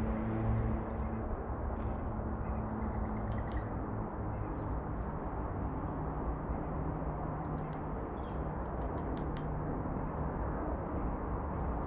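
Outdoor feeder ambience: small birds give short, high chirps and calls scattered through, over a steady low rumble.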